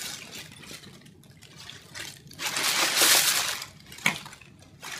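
Gift wrap and tissue paper rustling and crinkling as a cat pushes into a pile of it, loudest in a burst of about a second midway, with a shorter rustle near the end.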